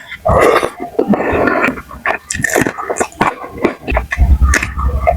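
Close-miked mukbang chewing: wet smacking and crunching of food with many sharp mouth clicks, and a few low thumps near the end.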